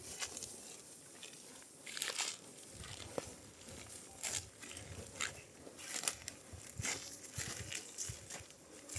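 Dry wheat stalks crunching and rustling, with irregular crisp snaps.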